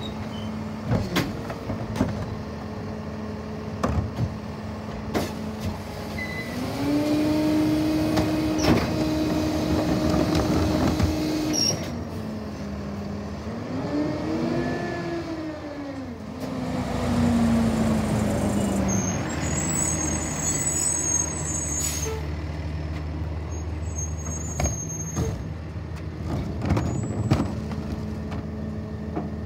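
Garbage truck engine idling, then revving up twice as the Leach rear loader's hydraulic packer cycles through the load, each time settling back to idle. Sharp bangs early on and near the end come from carts being dumped against the hopper, and a high hiss follows the second rev.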